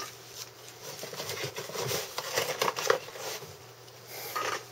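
Light handling noises of small workbench items: a scatter of soft clicks, taps and rustles, busiest in the middle, with a short cluster near the end.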